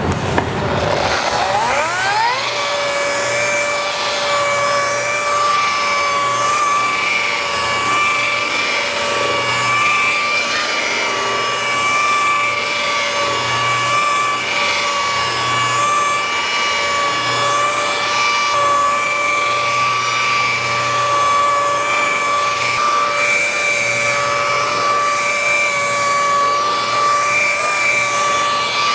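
Makita rotary polisher with a blue foam pad buffing ultra fine machine polish into fresh clear coat, the final polishing step. It winds up with a rising whine over the first two seconds, then runs at a steady pitch.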